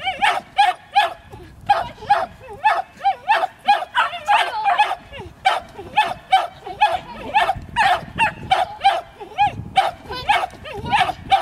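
A dog barking rapidly and without a break, about three barks a second.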